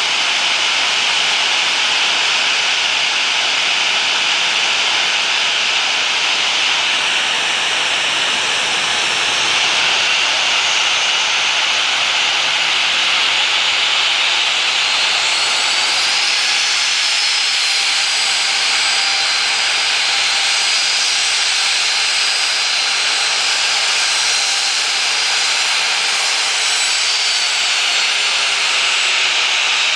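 Boeing 737-800's CFM56 turbofan jet engines running as the airliner taxis past: a steady loud hiss with a high whine. About halfway through the whine rises in pitch, holds, then falls away near the end.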